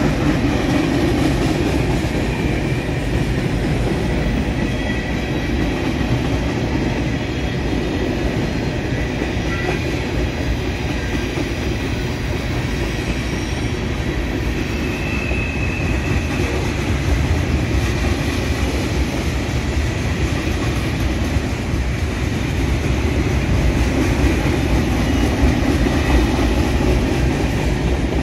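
Freight train cars rolling across a steel bridge overhead: a steady low rumble with wheel clatter and a few faint, brief wheel squeals.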